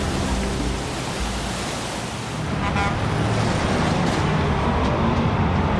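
Steady road traffic noise, a dense rumble of many vehicles, with a short higher-pitched note about three seconds in.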